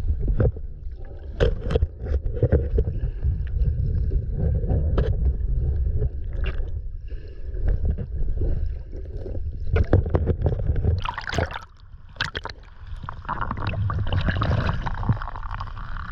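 Underwater sound picked up by a camera in the water: a heavy low rumble with scattered sharp clicks and knocks, briefly dropping away about twelve seconds in, then a hissing, gurgling rush of bubbles near the end.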